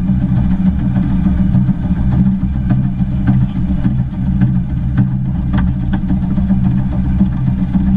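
Steam locomotive 'Northern Rock' on the move, heard from its cab side: a steady low rumble with scattered sharp clicks.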